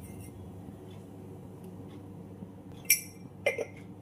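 Two sharp clinks of a small glass bottle being handled, about half a second apart near the end, over a steady low hum.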